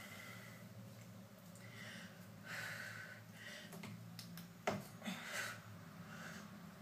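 A woman breathing hard and exhaling in bursts with the effort of hanging knee raises on a doorway pull-up bar, over a faint low hum. A single sharp knock about two-thirds of the way through is the loudest sound.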